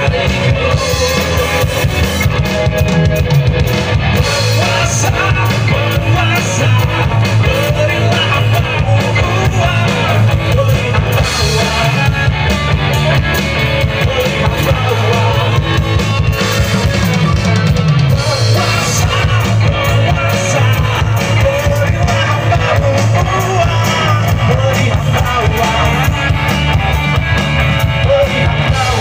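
Live rock band playing through a PA: electric guitars and a drum kit, loud and continuous.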